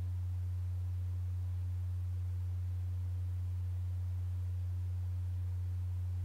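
A single steady, low pure tone that holds one pitch without change, a meditation drone under the relaxation practice.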